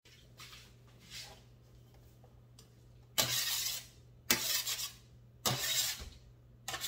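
A kitchen utensil scraping chopped onions across a metal sheet pan, four rough scrapes about a second apart starting about three seconds in.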